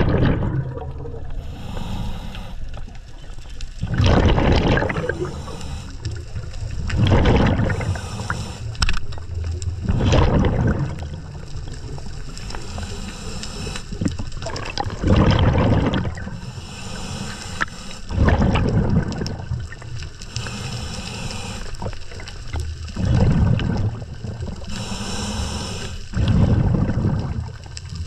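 Scuba diver breathing through a regulator, heard underwater: a hissing inhale followed by a bubbling exhale, repeating about every three to four seconds.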